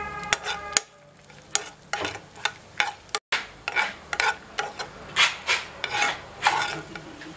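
Steel spoon stirring and scraping slivered almonds frying in ghee in a nonstick kadai, over a light sizzle. Quick scraping strokes, about three a second, start about a second and a half in.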